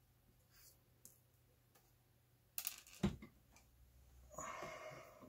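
Handling noises from working on the opened drill housing: a few faint clicks, a short scrape, a sharp knock about three seconds in, then a brief rustle near the end.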